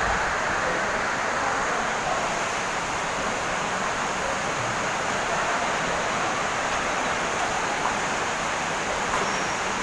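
Strong wind blowing through open market stalls, a steady rushing noise with no let-up.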